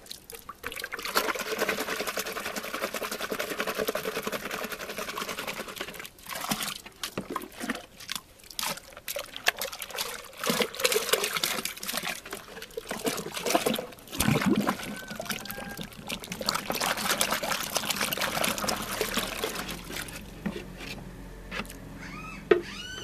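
Water mixed with molasses being scooped up and poured back into a metal basin, splashing and trickling in uneven spells as the solution is mixed.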